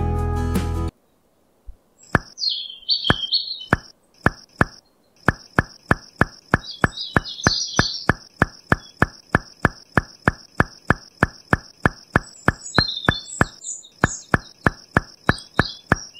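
Short sharp taps repeating evenly, about three a second: a placement sound effect as miniature clay bricks are set one by one in a ring. Faint bird chirps sound over them, and music cuts off about a second in.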